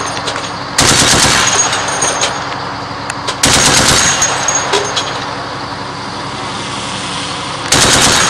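Three bursts of rapid machine-gun fire from a quadcopter-mounted .50 Browning-style gun, each starting suddenly. Between the bursts the quadcopter's rotors hum steadily.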